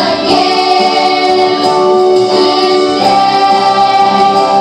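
A choir of children and teenagers singing with instrumental accompaniment, holding long notes, with a new phrase beginning about three seconds in.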